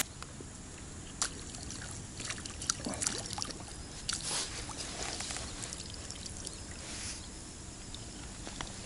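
Light splashing and sloshing of water as a hooked roach is played and skimmed across the lake surface on a float rod, with scattered small clicks and splashes.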